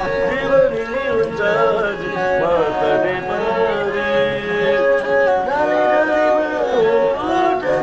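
Nepali sarangi, a bowed folk fiddle, played solo: a folk melody of long held notes joined by sliding pitch bends, at a steady level.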